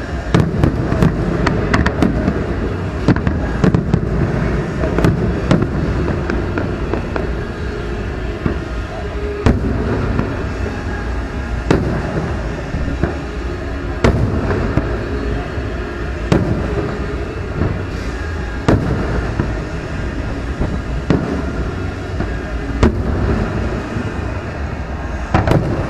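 Aerial fireworks shells bursting in a string of sharp bangs, several close together at first and then about one every two seconds, over a continuous low rumble.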